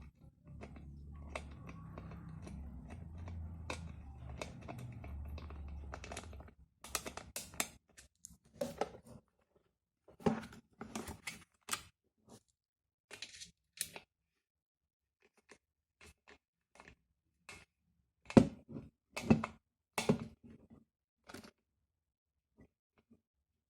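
Small plastic and metal clicks and knocks from handling the parts of an electric kettle's handle and its screws, scattered and irregular, a few louder knocks near the end. For about the first six seconds a low steady rumble sits under them.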